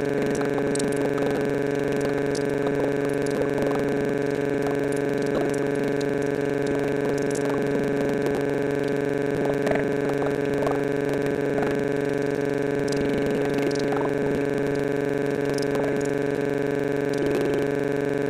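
A loud, steady electronic drone of several fixed tones that never changes in pitch or level, with a woman's voice faintly audible beneath it.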